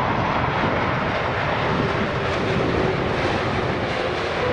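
Four CFM56 jet engines of an Airbus A340-300 running steadily: a wide, even rushing noise with a faint steady hum underneath.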